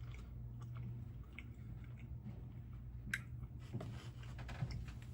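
Quiet room tone: a steady low hum with scattered faint clicks and small handling noises, a slightly sharper click about three seconds in.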